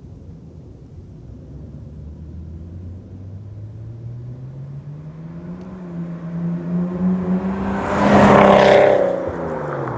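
Nissan Skyline's RB20DET turbocharged straight-six, on a Kakimoto Regu exhaust with no mid pipe, accelerating toward and past: the engine note climbs steadily in pitch, is loudest as the car passes about eight seconds in, then drops in pitch as it moves away.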